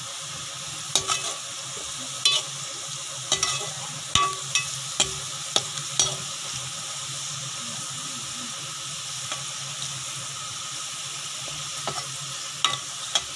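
Sliced onions frying in oil in a metal pot, a steady sizzle, as they brown. A perforated steel skimmer stirs them, scraping and clinking against the pot several times in the first six seconds and again near the end.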